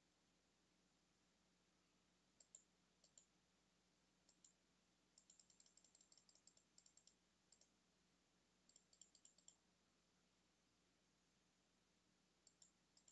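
Faint computer mouse button clicks. There are single clicks about two and a half and three seconds in, then a quick run of clicks from about five to seven seconds, another run around nine seconds, and a few more near the end.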